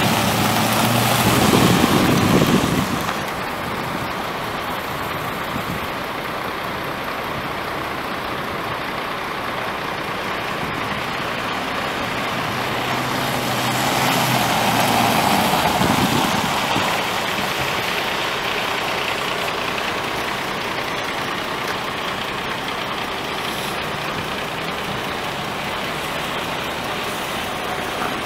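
5.4-litre V8 gas engine of a 2002 Ford F350 Super Duty pickup running at idle. It is louder for the first three seconds or so, then settles to a steady idle, with a brief swell about halfway through.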